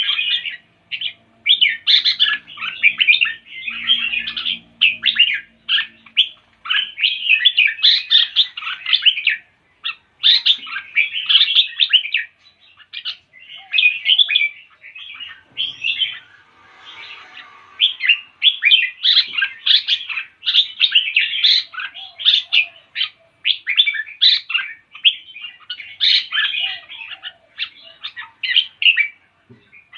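A songbird chirping and singing in rapid, busy phrases of high notes, with brief pauses in between.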